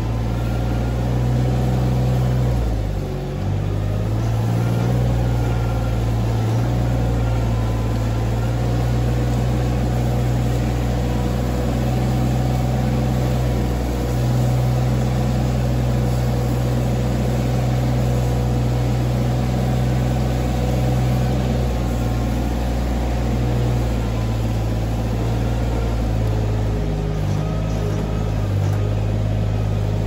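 Engine of a small ride-on manure scraper running steadily under load as it pushes slurry along a cow-barn alley, dipping briefly about three seconds in.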